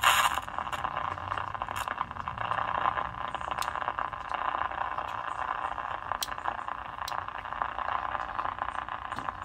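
Static hiss with scattered crackles from a late-1940s RCA 9W125 tube radio's test speaker. The receiver is coming alive while still run below its full 110-volt supply, with no antenna connected.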